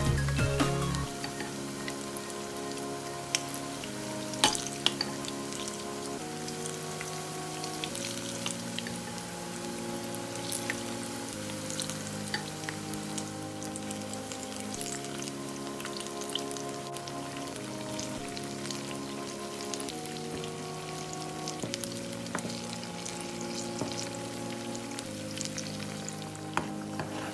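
Banana fritters deep-frying in a pan of hot oil: a steady sizzle with scattered crackles and pops. Soft background music of held notes, changing every second or two, plays underneath.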